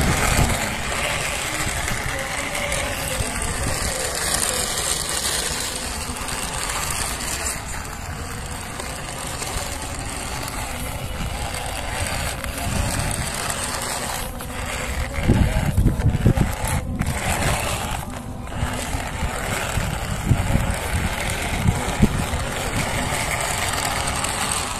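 Gritty crunching of a plastic toy dump truck's wheels rolling over dry, crumbly dirt. Low rumbling buffets, like wind on the microphone, come in about fifteen seconds in and again a little later.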